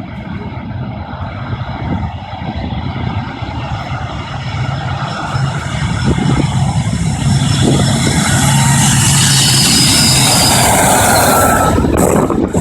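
BAe 146 jet airliner's four turbofan engines running at takeoff power, growing steadily louder over the first several seconds, then holding a loud, hissing jet noise as the aircraft passes close by.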